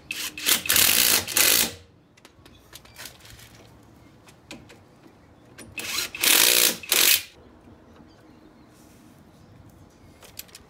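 Cordless Ozito impact driver running in two bursts of about a second and a half each, at the start and about six seconds in, driving caliper guide bolts into a disc brake caliper.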